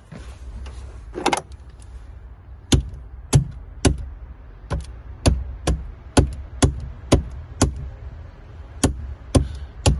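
Battery terminal clamp being knocked down onto a car battery post with a hand tool: a string of about a dozen sharp knocks, roughly two a second, starting about three seconds in, with a short rattle just after the first second.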